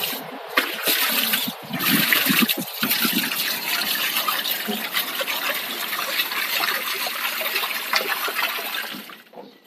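Water gushing out of a hose from a modified electric water pump under test. The flow is uneven for the first few seconds, then runs steadily and dies away shortly before the end.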